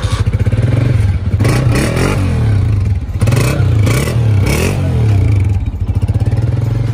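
Honda CG125's single-cylinder four-stroke engine running and revved through its stock exhaust silencer, rising and falling in pitch with a few throttle blips from about a second and a half in, then settling back toward idle near the end.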